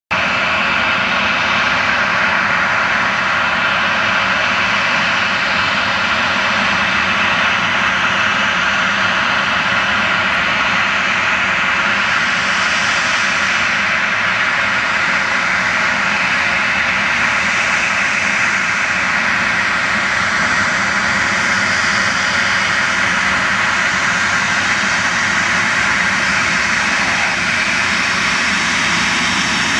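A Boeing 737-800's twin CFM56 turbofan engines running steadily at low power as the jet taxis close by: a loud, constant rush of engine noise with no spool-up.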